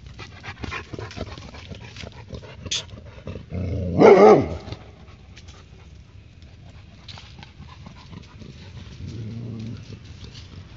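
A Labrador dog gives one loud, drawn-out bark about four seconds in, then a fainter call near the end.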